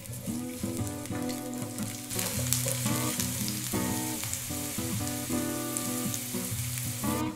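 Whole garlic cloves sizzling in cooking oil in a frying pan; the sizzle grows louder about two seconds in and stops just before the end. Guitar music plays underneath.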